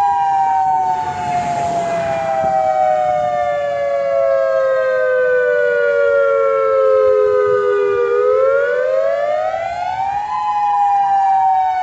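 Civil defense warning siren on a tower sounding the attack-warning wail, Hawaii's signal for a nuclear attack, here in a test. Its pitch slides slowly down for about eight seconds, climbs back up over about two seconds, and starts to fall again.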